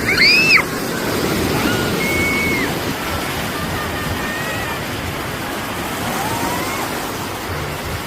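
Steady rush of sea surf breaking on a sandy beach, with a short high-pitched call just at the start.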